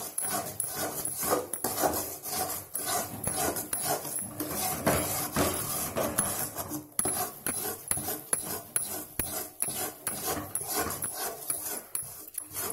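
Metal ladle stirring and scraping thick gram-flour batter in a metal kadai in fast, irregular strokes with no let-up. This is Mysore pak batter being stirred quickly after hot oil is added, so that it does not stick to the bottom of the kadai and burn.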